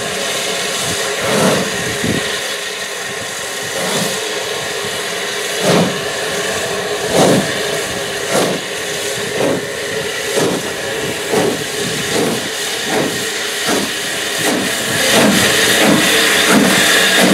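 USATC S160 2-8-0 steam locomotive No. 2253 'Omaha' pulling away with a train, its exhaust beats coming quicker as it gathers speed over a steady hiss of steam. It grows louder near the end as the engine draws level.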